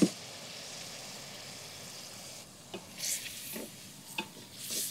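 Vegetables and shallots sizzling in a clay pot with a steady hiss, then a few short scrapes of a spatula stirring the pot from about halfway through.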